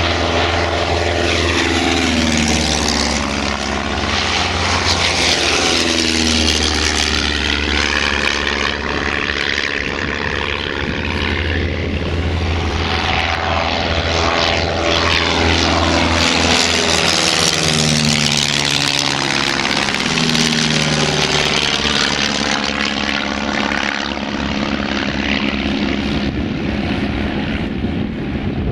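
Van's RV kit planes' piston engines and propellers droning at high power during take-off and low passes. The pitch slides and the sound swells and eases each time a plane goes by.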